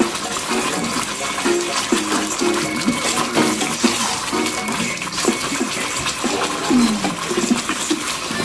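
Ketchup-based sauce bubbling in a saucepan while being stirred with a spoon, over background music.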